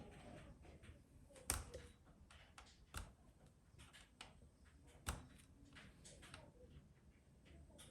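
Faint, scattered clicks and taps of the plastic bottom cover of a Lenovo IdeaPad 330 laptop being pried loose around its edges, with three sharper clicks standing out, about a second and a half, three and five seconds in.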